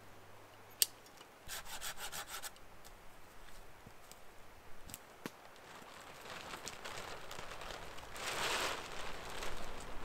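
A plastic tarp rustling and scraping as it is pulled up and draped over a shelter frame, growing louder and loudest about eight and a half seconds in. Earlier come a single sharp click and a quick run of ticks.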